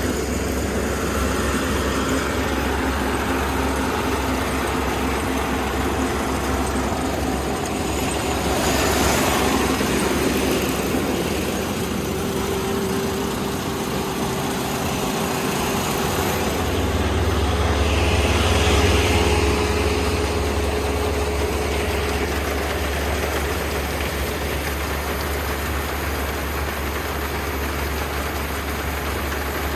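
Kubota combine harvester running steadily, its engine and machinery making a continuous low drone that grows a little louder about two-thirds of the way through.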